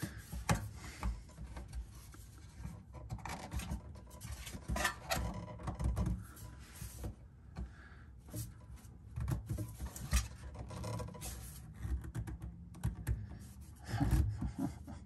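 Rubber vapor-canister hose being pulled and worked into place under the car, rubbing and scraping against the underbody and the metal brace, with a few light knocks.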